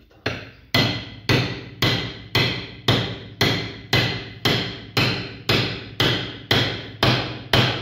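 Hand hammer striking the top of a metal rod held upright in a bench vise, driving it into a cylindrical fitting. About fifteen steady blows, roughly two a second, each with a short metallic ring.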